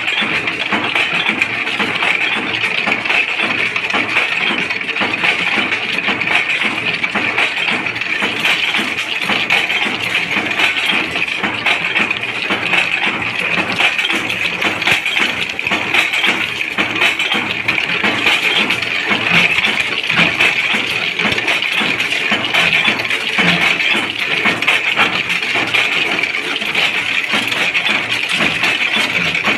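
Flat-die thread rolling machine running, a rapid, steady metallic clatter as bolt blanks are rolled. Threaded bolts clink as they drop into the steel tray.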